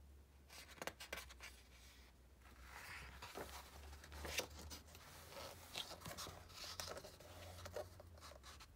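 A page of a large picture book being turned by hand: paper rustling and scraping, with several sharp flicks as the sheet is lifted, turned over and laid flat.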